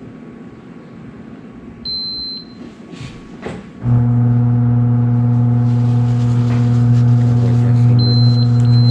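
Electric garage door opener motor starts suddenly about four seconds in and runs with a loud, steady low hum. A short high electronic beep sounds about two seconds in and again near the end.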